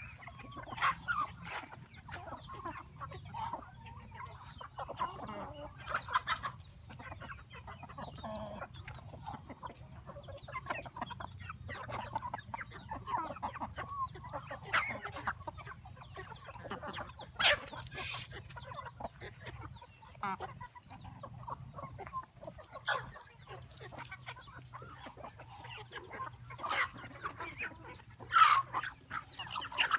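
A flock of chickens clucking steadily with many short overlapping calls, broken by a few louder, sharper sounds, with a steady low hum underneath.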